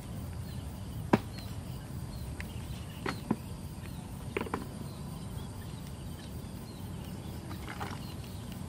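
A handful of short, sharp knocks spread over several seconds against a steady outdoor background: a hoe chopping into hard earth.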